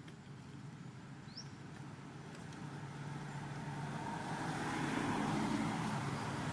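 A passing road vehicle's engine and tyre noise, a low hum that grows steadily louder from about halfway through as it approaches.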